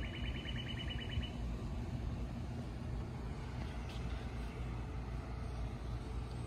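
Steady low rumble, with a fast high-pitched chirping trill that stops about a second in.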